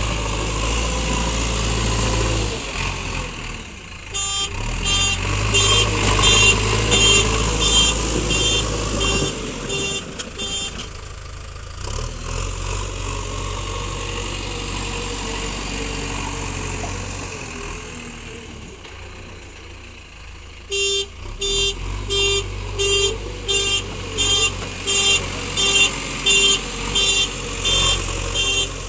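JCB backhoe loader's diesel engine running with a steady low rumble. Over it, an electronic reversing alarm beeps about twice a second in two long spells, the second near the end.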